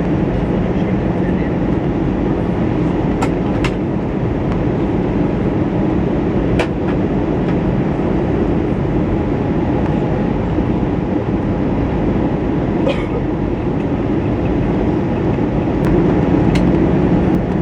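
Steady cabin noise inside an Airbus A320 in flight: a loud, even rumble of engines and airflow, with a few faint clicks.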